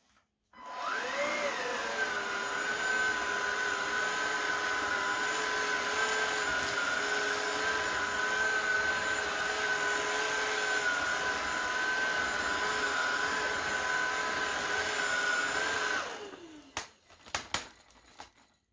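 Xiaomi Shunzao Z11 cordless stick vacuum switched on: the motor whine rises quickly, then settles into a steady high whine over a loud rush of air. Near the end it is switched off and the whine falls away, followed by a few clicks.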